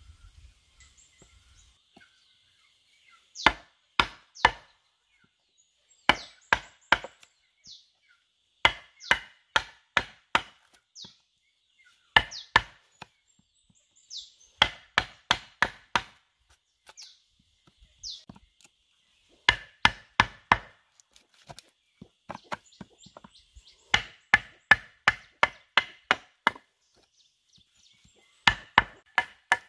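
Wooden mallet striking a chisel cutting a mortise into a wooden beam: sharp knocks in quick groups of three to six blows, with short pauses between groups.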